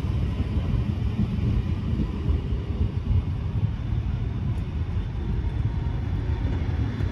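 Heritage passenger carriages rolling past on the rails, their wheels making a steady low rumble on the track.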